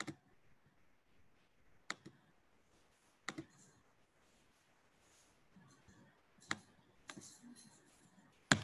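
Computer mouse clicking: about five sharp, single clicks a second or two apart, with faint room tone between them.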